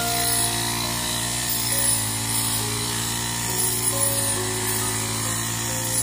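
A small engine-driven rice harvester running steadily with a constant motor hum, under background music with a slow stepping melody.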